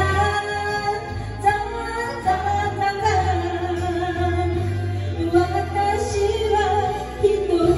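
A woman singing an enka song into a microphone over a karaoke backing track, holding long notes.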